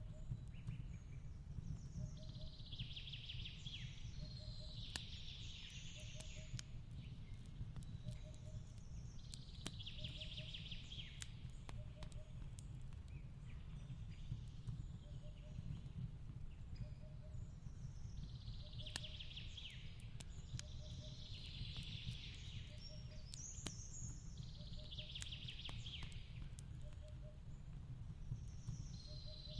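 Fireplace crackling, with scattered sharp pops over a steady low rumble, mixed with forest birdsong: warbling calls every few seconds and a faint short note repeating about once a second.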